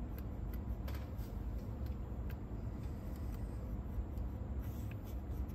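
Scattered light clicks and taps from small parts of a cassette deck's tape transport being handled and adjusted, over a steady low hum.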